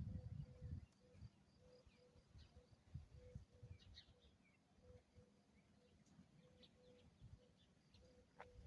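Near silence broken by faint gusts of wind buffeting the microphone, strongest in the first second, with faint bird chirps in the background.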